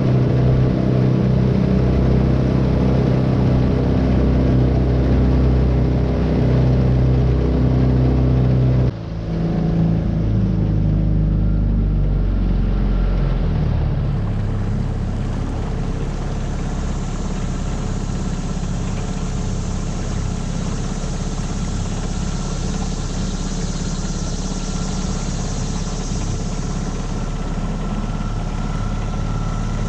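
A 9.8 hp Tohatsu four-stroke outboard motor running steadily under way. About nine seconds in the sound breaks abruptly, the engine note falls, and it runs on with more rushing, hissing noise.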